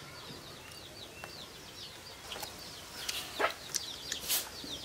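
Birds chirping in many short, high, quick calls, with a few sharp clicks in the second half.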